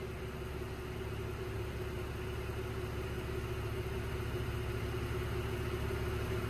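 Steady low mechanical hum with a steady faint tone through it, growing slightly louder.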